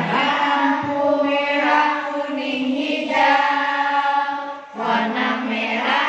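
Group of young children singing a traffic-light song together in unison, in long held notes, with a short break for breath near the end.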